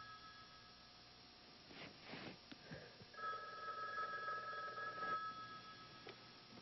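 A landline telephone ringing in steady two-tone rings. A ring stops right at the start, and after a pause of about three seconds another ring lasts about two seconds. Faint rustling during the pause.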